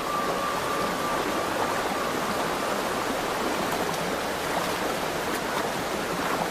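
Salmon stream rushing steadily.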